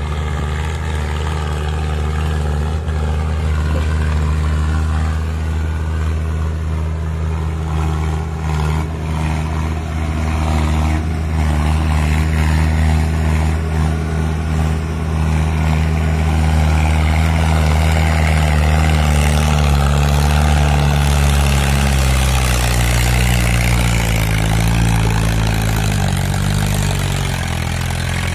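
Mahindra Arjun 555 DI tractor's four-cylinder diesel engine working steadily as it pulls a loaded trolley, getting louder as it comes closer. The engine note drops in the last few seconds.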